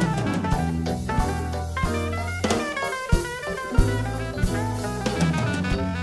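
Live jazz band playing an Afro-Cuban Latin jazz fusion tune: a saxophone plays the melody over a busy drum kit and sustained electric bass notes.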